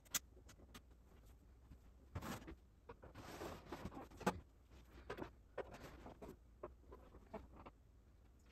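Faint, scattered rustles and small clicks of a boa constrictor shifting its coils on bark-chip bedding in a glass tank as it swallows a thawed rat, with a longer rustle about three seconds in and a sharp click soon after.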